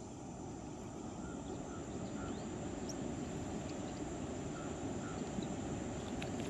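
Outdoor ambience: a steady low rushing noise that grows slowly louder, with a thin, steady high insect drone and a few faint short chirps.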